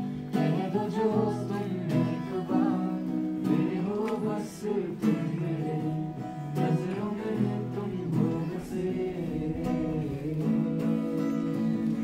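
Acoustic guitar strummed with a voice singing a melody over it.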